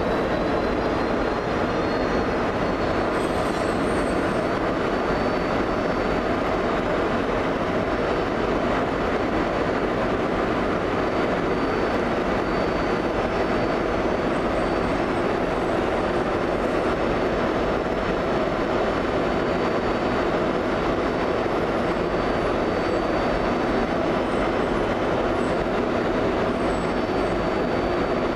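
A train running: a steady, even rumble of rail noise with a faint high whine held over it.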